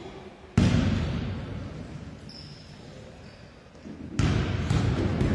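A basketball bounced on a hardwood gym floor: a loud thud about half a second in and again near the end, each followed by a long booming echo around the hall.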